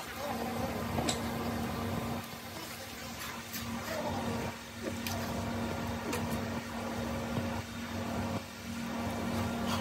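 Foundry sound while molten iron is poured from a hand ladle into cylinder-liner moulds: a steady machine hum under a hissing noise, with a few scattered clicks and knocks.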